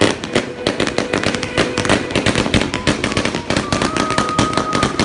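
Category 2 consumer fireworks going off in a rapid barrage of sharp bangs and crackles, several a second, with music playing underneath.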